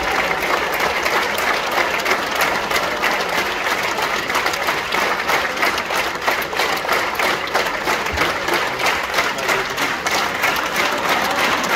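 Large theatre audience applauding the cast at a curtain call, a dense, steady clapping that keeps up without a break.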